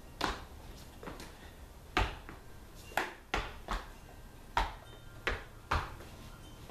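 About ten sharp slaps and strikes, irregularly spaced and each dying away quickly, from a person working through a Kenpo long form: hands, arms or weapons striking in quick sequences, with a brief echo in a bare garage.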